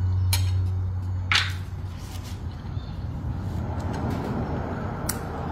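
Eating noises: a metal spoon clicks and scrapes a few times against a ceramic bowl of jambolan tossed with salt and chilli, with soft closed-mouth chewing. A low hum fades out in the first second and a half.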